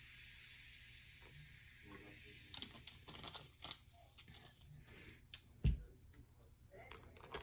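Objects being handled on a table: a run of small clicks and taps starting about a third of the way in, with one dull thump about three-quarters through, as something is set down.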